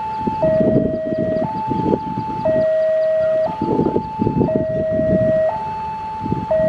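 Railway level-crossing warning alarm sounding a two-tone electronic signal, alternating between a higher and a lower tone about once a second, the warning that a train is approaching and the crossing is closed. Low rumbling noise comes and goes beneath it.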